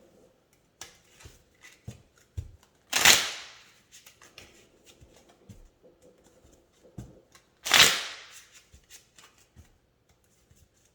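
A deck of tarot cards being shuffled: two brisk rattling shuffles about 3 and 8 seconds in, with light clicks of the cards being handled between them.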